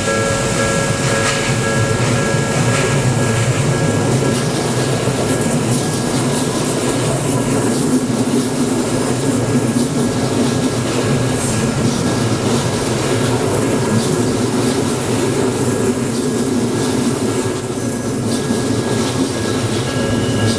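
Odakyu Odawara Line train running past at a level crossing: a steady rumble of wheels and motors. Several high steady tones at the start fade under the train noise and return near the end.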